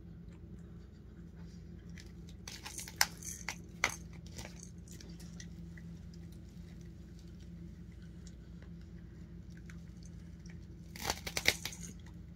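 A pet tearing and chewing at a soccer ball: scattered bursts of crackly ripping about two to four seconds in and again near the end, over a steady low hum.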